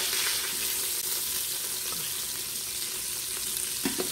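Chicken thighs sizzling steadily in hot avocado oil in an Instant Pot on sauté, the skin crisping, with a brief pitched sound near the end.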